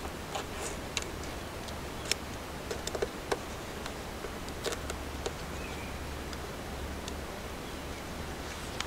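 Irregular small clicks and taps from hands working vinyl decals onto a boat hull, over a steady low hum.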